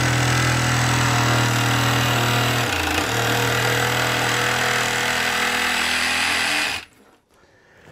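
Cordless reciprocating saw with a long metal-cutting blade running steadily as it cuts through drywall sheetrock, dipping briefly in speed about three seconds in, then stopping suddenly about seven seconds in.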